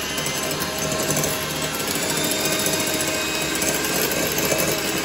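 Electric hand mixer running steadily, its twin wire beaters whisking egg whites in a glass bowl.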